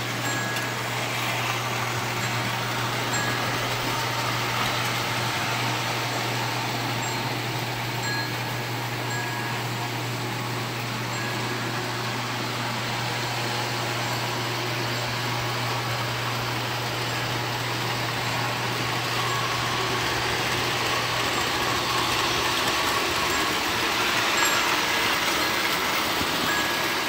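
Vintage Lionel O-gauge electric toy trains running on three-rail tinplate track: a steady whir and rumble of motors and wheels, with a steady low hum underneath that fades out near the end.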